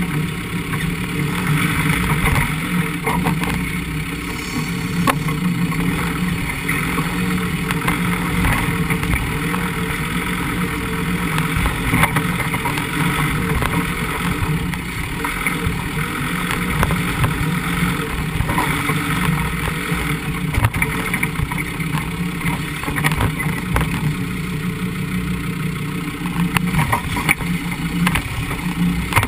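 Land Rover Defender 90 running steadily as it drives slowly through a shallow river, with water rushing and splashing around the low-mounted camera. Scattered sharp knocks and clicks come throughout.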